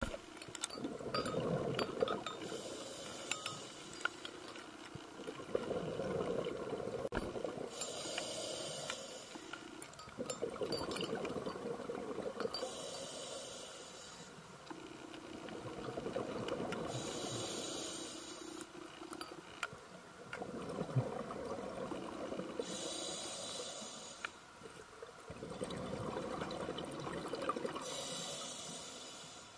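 Scuba diver breathing through a regulator underwater. A hiss on each inhale alternates with a low rumble of exhaled bubbles, in six slow breaths about five seconds apart.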